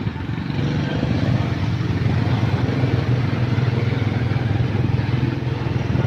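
Small motorcycle engine running at a steady speed, with some wind noise.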